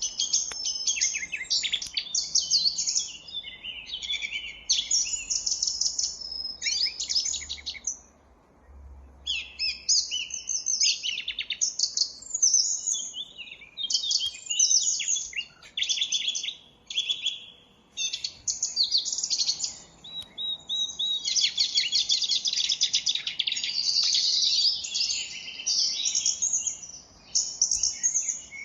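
Several small birds chirping and twittering in quick, high bursts, with a short lull about eight seconds in and near-continuous chatter from about twenty seconds on.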